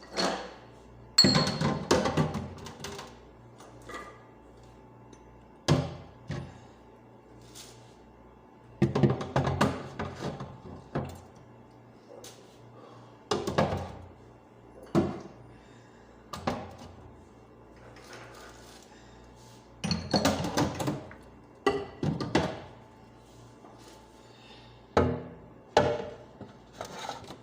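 Intermittent thuds and clatter of food containers and produce being moved and set down on fridge shelves, coming in short groups of knocks every few seconds.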